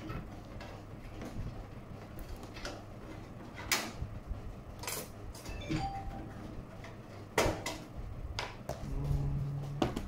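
Scattered light knocks and clicks of hardware and plastic cases being handled on a tabletop, a few of them sharp.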